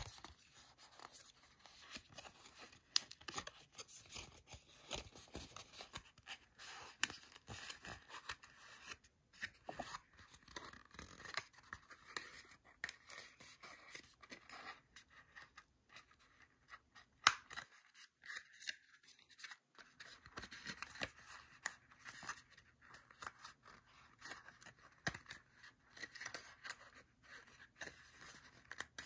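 Stiff printed cardstock being creased and folded by hand into a paper dice: dense, crisp rustling with small clicks, and one sharper snap about two-thirds of the way through.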